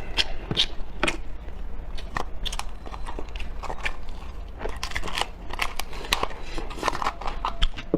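Crab shell cracking and crunching as a crab is broken open and eaten: irregular sharp crackles and snaps throughout.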